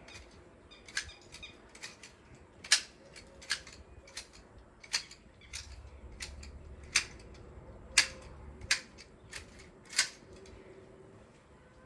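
Hand pruning shears snipping through ornamental shrub branches, with sharp, irregular cuts about once or twice a second.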